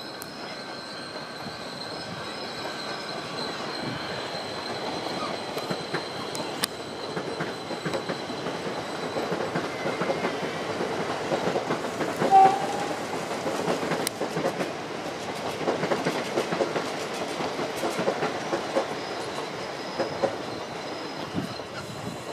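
Ride-on miniature railway train with loaded passenger cars running past on the track: a steady rumble and clickety-clack of small wheels over the rail joints, growing louder as it nears, with a short whistle toot about halfway through.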